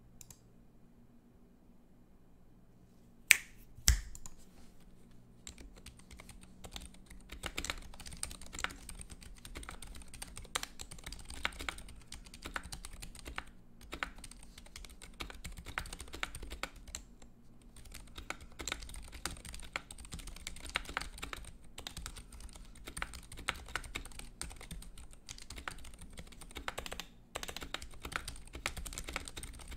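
Typing on a custom mechanical keyboard: lubed ZealPC Zilent 67g silent tactile switches on a brass plate in an acrylic Tofu65 case, with HyperX Pudding keycaps and rubber O-rings. Two sharp clicks come about three seconds in, then rapid continuous keystrokes with a few brief pauses.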